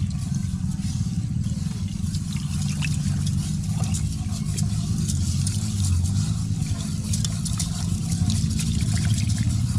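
Rice being rubbed and swished by hand in water in a metal pot, a fine wet crackle, over a steady low rumble.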